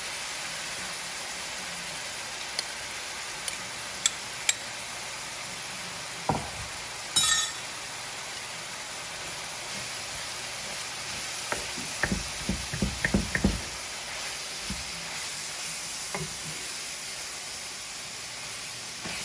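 Ground meat and cooked brown rice sizzling steadily in a frying pan while being stirred. A utensil clinks and knocks against the pan now and then, with a flurry of knocks about twelve to thirteen seconds in.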